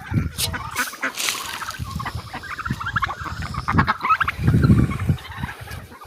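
Domestic fowl, ducks and geese among them, giving a run of honking calls. A louder low rumble comes about two-thirds of the way through.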